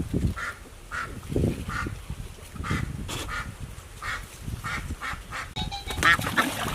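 Farm waterfowl honking repeatedly, short calls about two a second.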